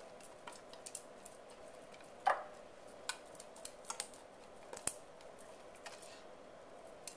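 Scattered light clicks and taps of a can of sweetened condensed milk being emptied into a mixing bowl, with one louder knock about two seconds in.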